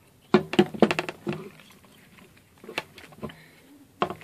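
Handling noise from Skullcandy Crusher Wireless over-ear headphones: a run of plastic knocks and clicks as the headset is turned over in the hand in the first second and a half, then a few more about three seconds in.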